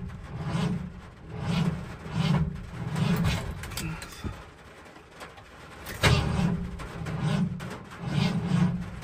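Bullnose Ford F-150's starter cranking the hot engine slowly and laboriously, roughly one heavy turn per second, in two tries: the first stops about four seconds in and the second kicks in sharply about six seconds in. This is the truck's hard start when hot.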